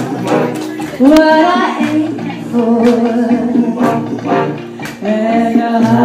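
A woman singing a show tune into a microphone over musical accompaniment, with long held notes and a new phrase starting near the end.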